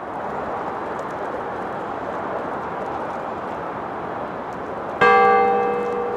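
A steady rushing noise, then about five seconds in a single loud strike of a large tower bell, whose several tones ring on and slowly fade.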